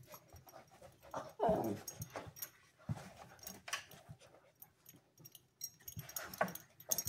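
Two dogs, one of them a husky puppy, play-fighting: scuffling and short, irregular dog noises. The loudest, about one and a half seconds in, is a brief call that falls in pitch.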